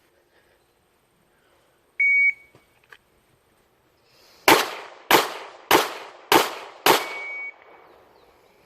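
A short electronic beep, then about two seconds later five 9mm shots from a Glock 26 pistol fired a little over half a second apart, with a fainter beep just after the last shot.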